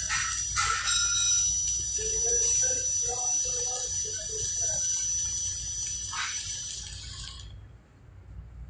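Electric welding arc crackling and hissing steadily while sparks fly, over a low hum. The arc cuts off abruptly about seven and a half seconds in.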